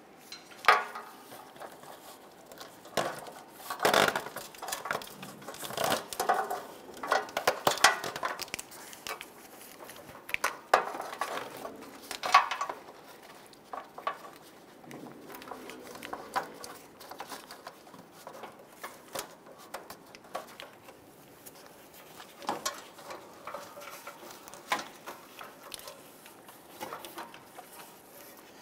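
Irregular clicks, knocks and scraping of a wiring harness in corrugated plastic loom being pushed through a plastic grille shell by gloved hands, louder in the first half.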